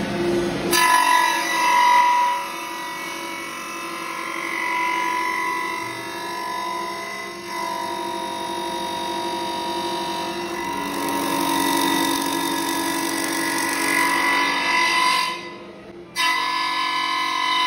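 CNC woodworking machine running: its motors give a steady whine of several tones that shift in pitch and strength as it works. The sound dips away briefly about a second and a half before the end.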